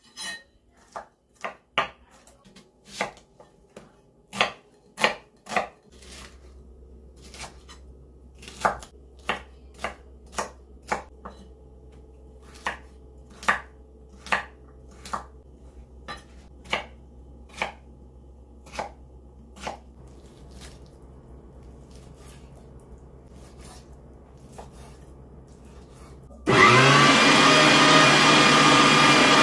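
Kitchen knife chopping garlic and then carrots on a wooden cutting board, sharp irregular strikes. About 26 seconds in, an electric meat grinder switches on and runs loudly and steadily while grinding raw chicken.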